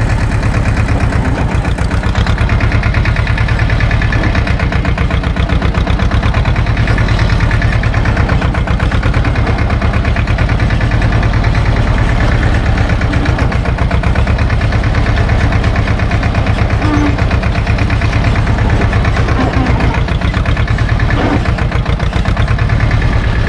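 Diesel engine of a Same tractor running steadily close by, with an even chugging beat, as the tractor slowly reverses with a trailer.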